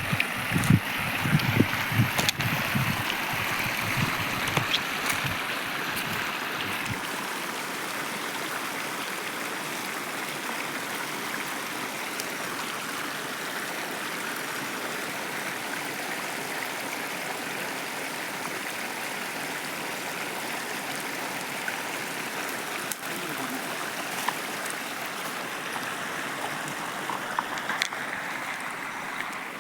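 Stream water running steadily, with irregular low thumps and knocks during the first few seconds.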